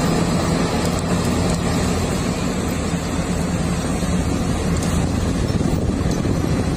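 Heavy excavator engine running steadily: a low, constant hum under a rough mechanical rumble, played as a sound effect for the toy excavator.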